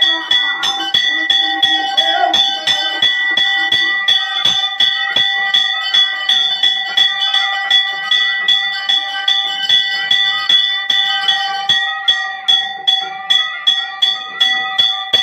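Temple bell rung in a quick, steady rhythm of nearly three strokes a second, its ringing tone carrying on between strikes.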